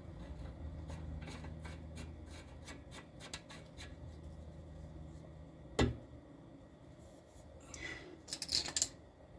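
Ratcheting wrench clicking in short, quick runs as the sway bar end link's bottom nut is turned. A single sharp metal knock comes about six seconds in, and tools scrape and rattle near the end.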